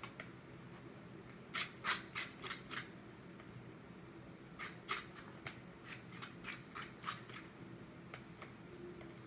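Glue-and-Tide slime being stirred and mixed in a container: quick bursts of short clicks and sticky scrapes, one group about two seconds in and another from about five to seven seconds in.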